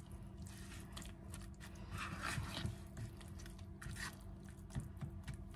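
A spoon stirring and scraping thick oatmeal in a bowl, with small clicks of the spoon against the bowl. Under it is a faint steady hum.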